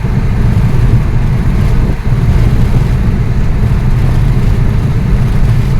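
Steady low rumble of a car's road and engine noise heard from inside the cabin while driving at speed on a highway.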